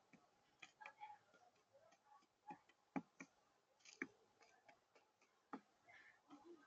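Doves scuffling: faint, irregular sharp taps and clicks, roughly one or two a second, against near silence.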